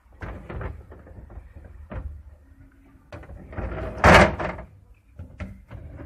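Plastic drawer and shelf of a no-frost refrigerator being handled: several short knocks and clicks, with a louder sliding rush about four seconds in.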